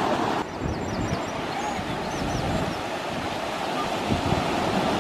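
Sea waves washing on a pebble beach, with wind buffeting the microphone.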